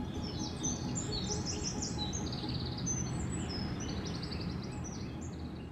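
Several birds chirping and trilling over a steady background hiss, fading out near the end.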